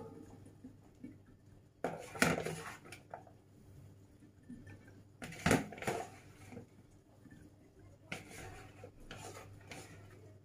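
Handfuls of diced dried figs and apple cubes dropped into a large glass jar, landing with a dry rustle against the glass about three times.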